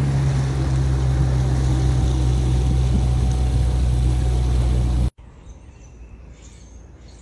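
Small aluminium boat's outboard motor running steadily at cruising speed, with wind and water rushing past; it cuts off abruptly about five seconds in, leaving a quiet outdoor background.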